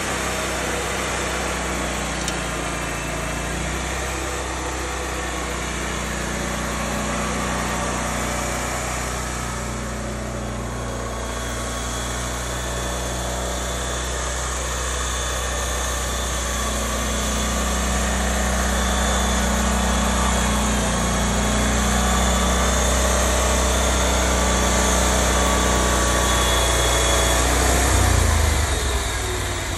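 Vermeer SC252 stump grinder's 35 hp Kohler engine running steadily, its level swelling and easing a little. Near the end it peaks, then the engine note falls and the sound drops away.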